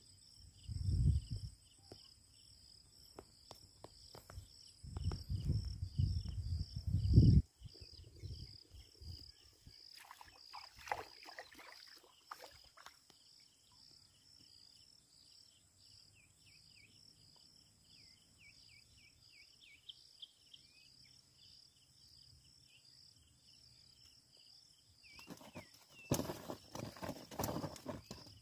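Insects trilling steadily in a fast pulsing rhythm, with low rumbling bursts in the first seven seconds and a burst of rustling near the end.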